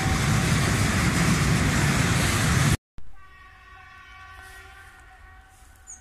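Tank wagons of a freight train rolling past close by, a loud steady rumble and rattle of wheels on rail. After a cut about three seconds in, a distant approaching train sounds one long steady horn blast that fades toward the end.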